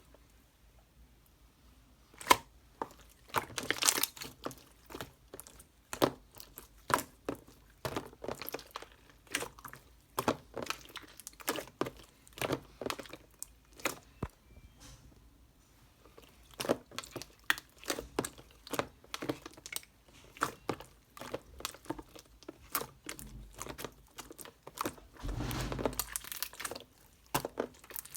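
Close-up, irregular crinkling, crunching and tearing sounds, with a longer rustle about four seconds in and another near the end.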